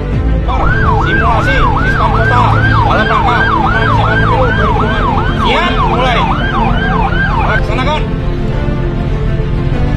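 Police vehicle siren in a fast yelp, its pitch sweeping up and down about three times a second; it starts about half a second in and stops about eight seconds in, over a steady low background.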